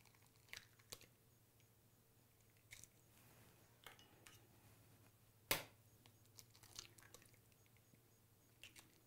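Faint, scattered clicks and taps of eggs being cracked on the rim of a stainless steel mixing bowl and the shells pulled apart, with one sharper knock about halfway through.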